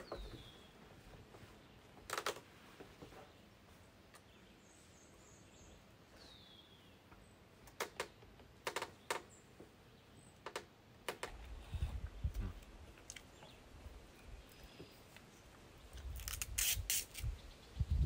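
A bird gives two short falling chirps, one at the start and one about six seconds in. Scattered sharp clicks and taps of takeaway food packaging handled on a wooden table, thickest near the end, with a low rumble in the last several seconds.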